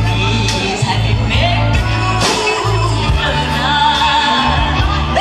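Live band playing a slow dance number, with a woman singing lead over a held bass line, drums and electric guitars.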